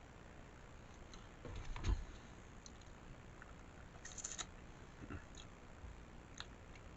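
Quiet mouth sounds of someone eating: scattered wet clicks and smacks of chewing, with a low thump about two seconds in and a short crackly burst a couple of seconds later.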